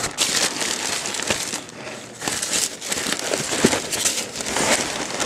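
Stiff oil-impregnated wrapping paper crinkling and rustling in irregular bursts as a new shotgun lying on it is handled.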